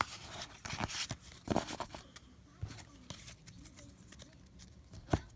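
Pokémon trading cards and their paper and plastic packaging being handled: scattered light rustles and ticks, a little louder about a second and a half in, with one sharp tick near the end.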